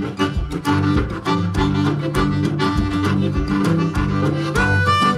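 Background music: an upbeat tune with a steady beat and a bass line, with held melody notes coming in near the end.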